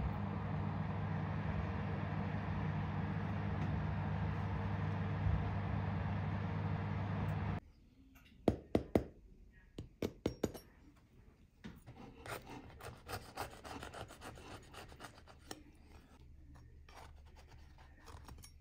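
Convection oven running with a steady fan hum, which cuts off suddenly after several seconds. Then a knife taps and saws through the crisp, hard-baked bread crust of a dough pot, making a few sharp clicks followed by a run of scratchy rasping.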